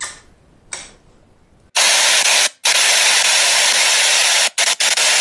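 A faint lip smack at the start. Then, from about two seconds in, a loud, even hiss of static-like noise with a few brief dropouts, laid over the outro card.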